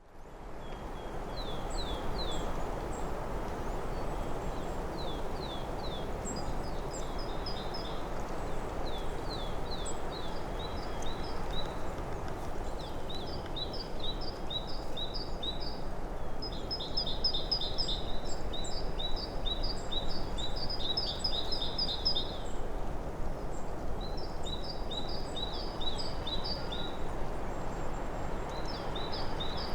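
Small songbirds calling in quick repeated series of short high notes over a steady low rushing background of the forest. The sound fades in at the very start.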